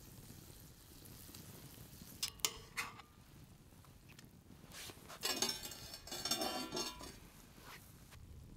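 Metal clinking and scraping against a steel frying pan as crêpes are handled in the pan: two sharp clinks a little over two seconds in, then a longer run of clattering clinks and scrapes from about five to seven seconds.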